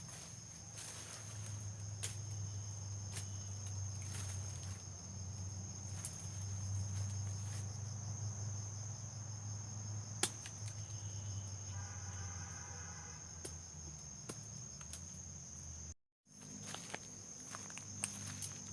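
Insects, such as crickets or cicadas, trilling steadily on one high note, over a low hum. Scattered sharp clicks and knocks come through, and the sound cuts out briefly near the end.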